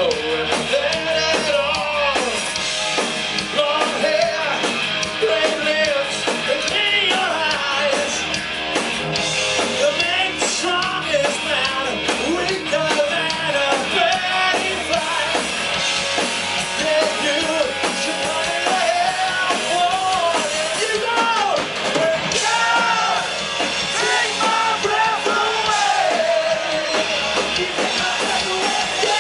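Rock band playing live at full volume, with a lead melody bending and sliding in pitch over the guitars and drums.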